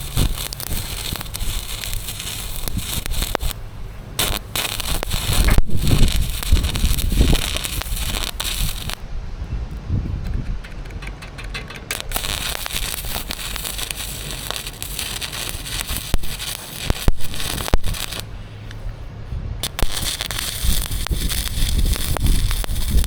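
Electric arc welder crackling and sputtering in runs, stopping briefly a few times between beads, over a low wind rumble.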